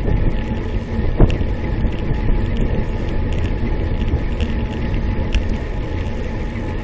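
Wind rushing over the microphone of a camera on a bicycle ridden on asphalt, with steady low rumble from the road. One sharp knock comes a little over a second in.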